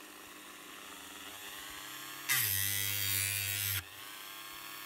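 Engraving rotary tool with a grinding stone running at low speed; a little over two seconds in, the stone grinds along the steel edge of a planer blade for about a second and a half, a loud gritty hiss, before dropping back to the faint sound of the tool running. It is a low-speed first sharpening pass on a dry, uncooled blade.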